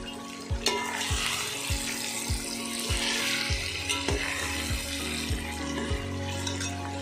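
Mutton pieces sizzling as they fry in oil in a metal pot, stirred with a slotted spoon; the sizzle picks up about half a second in. Background music with a steady low beat plays underneath.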